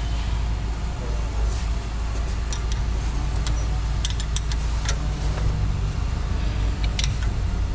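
Sharp metal clicks and clinks from a disc brake caliper and a hex key being handled as the caliper is fitted back over the brake disc, most of them in a quick cluster around the middle. A steady low hum runs underneath.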